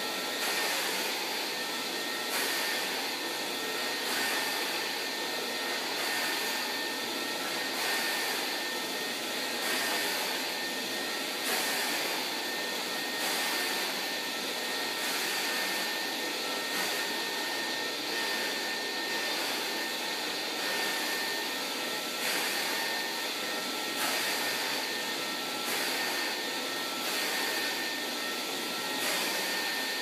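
Hoover C2818 commercial tub vacuum cleaner with a 1000 W motor running steadily as its floor tool is pushed back and forth over carpet. It gives a constant rush of air with a fixed high whine, and the sound swells slightly with each stroke of the floor tool.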